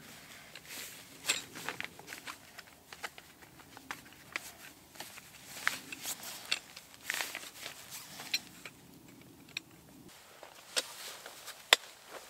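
Metal poles of a folding camp bed being slid through its fabric sleeves and fitted into the frame: scattered clicks and knocks over fabric rustling, with one sharp click, the loudest, near the end.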